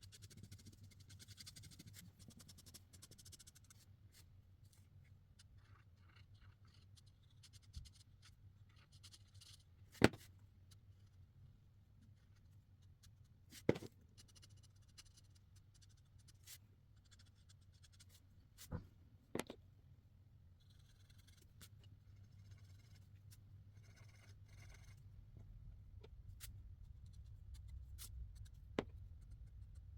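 Marker tips scratching and rubbing across paper in short stretches of strokes, faint throughout. Five sharp clicks or taps stand out, the loudest about ten seconds in, another near fourteen seconds, a quick pair a little after eighteen seconds, and one near the end.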